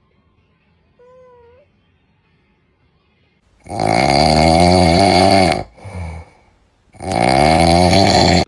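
Loud snoring: two long snores with a short breath between them, after a faint, brief wavering tone about a second in.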